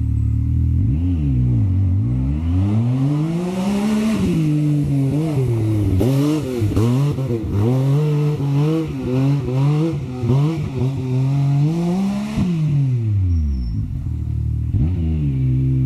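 Yamaha YXZ1000R side-by-side's three-cylinder engine under way, rising in pitch over the first few seconds and then swinging quickly up and down with repeated throttle changes. About three-quarters of the way through the pitch falls away and the engine settles to a steady note, with a short rise again near the end.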